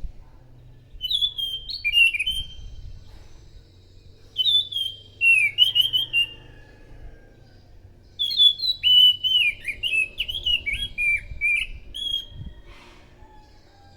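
Anis macan thrush singing: three phrases of quick, varied whistled notes, each a couple of seconds long, the last and longest starting about eight seconds in.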